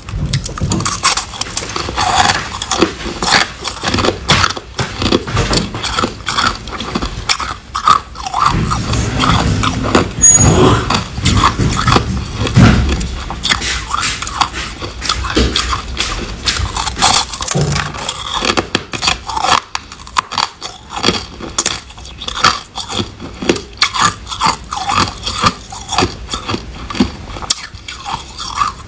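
Close-miked crunching of packed crushed ice as a person bites and chews it, a dense run of irregular crisp crunches and crackles. Near the start there is a scrape of ice being gathered from the tray.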